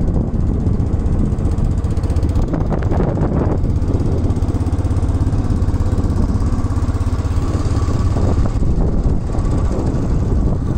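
Vehicle engine running steadily while driving along a road, heard from on board the moving vehicle, with a dense low drone and a brief rougher stretch of noise about two and a half seconds in.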